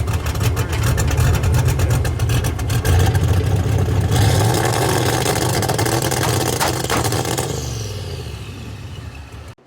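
Vehicle engine revving loudly, with rapid pulsing at first, then fading and falling in pitch near the end before cutting off suddenly.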